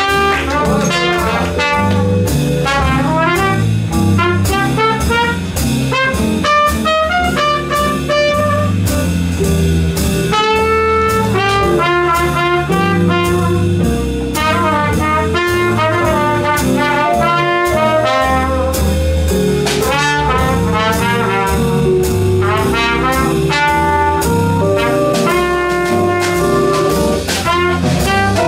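Small swing band playing an instrumental passage live, with trumpet lead of quick runs and held notes over piano, guitar, double bass and drums.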